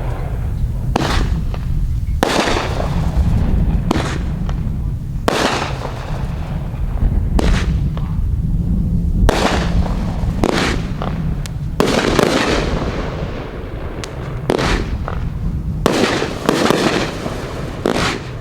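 A 15-shot 200-gram fireworks cake firing its shots one after another, roughly one every second or so. Each shot is a sharp launch and burst that fades away slowly, over a steady low rumble.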